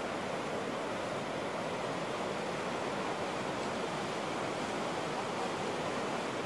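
Whitewater rapids rushing steadily, an even sound of churning water.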